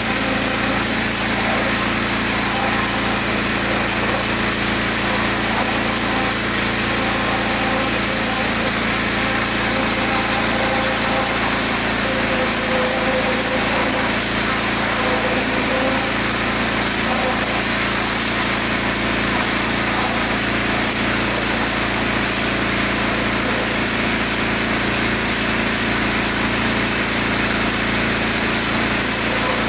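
A small engine-driven machine running steadily and unchanging throughout, a loud continuous motor sound.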